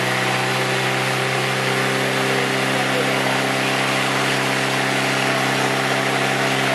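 Engine of a portable fire pump running at steady revs, driving water through the hoses, with the hiss of two water jets spraying from the nozzles.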